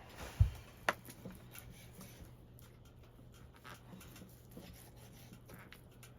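Cooking gear being handled: a dull thump about half a second in, a sharp click just after, then scattered light taps and rubbing.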